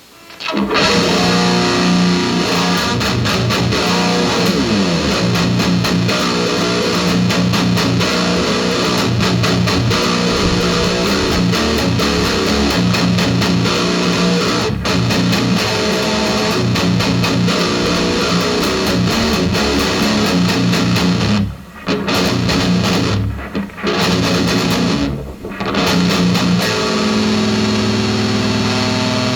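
Electric guitar tuned down to drop A# playing a fast, low rock riff with rapidly picked notes, stopping briefly three times about three-quarters of the way through.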